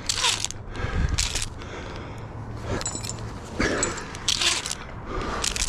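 Metal climbing hardware, such as carabiners and rigging gear on a tree climber's harness, clinking and jangling in irregular bursts as he works his way up the rope.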